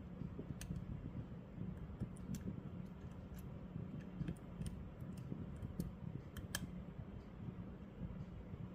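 Dimple pick working the pins of a Nemef NF4 dimple euro cylinder under tension: faint, irregular metallic clicks and ticks, with a few sharper clicks scattered through, over a low steady hum.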